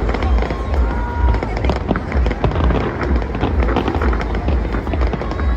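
Fireworks going off: a dense run of sharp cracks and pops over a continuous low rumble.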